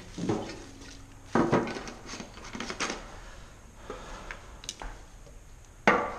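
Paint jugs, caps and cans being handled and set down on a stone countertop: a string of knocks and clatters of plastic and metal. The loudest comes about a second and a half in and another just before the end.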